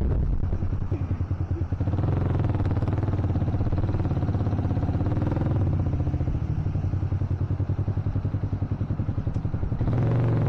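Yamaha Vixion Advance's single-cylinder four-stroke engine running under way, with rapid even firing pulses, getting louder near the end.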